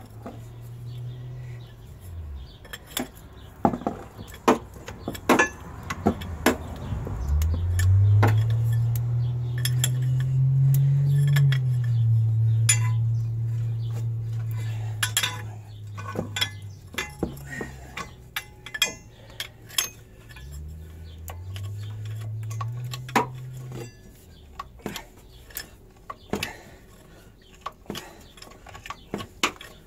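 Bottle jack in a homemade ball joint press frame being pumped against a ball joint: irregular metallic clinks and taps from the jack handle and steel frame. Under them runs a low hum that rises in pitch and holds, loudest through the middle and again briefly near the end.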